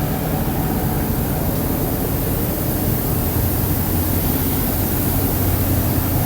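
Sawmill machinery running steadily: a constant low hum with an even hiss above it, with no separate cuts or knocks.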